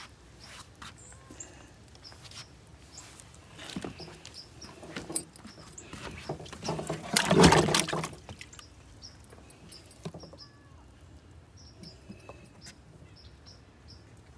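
Small birds chirping now and then, with scattered faint knocks of handling on a wooden dock. About seven seconds in comes a loud burst of handling noise lasting about a second.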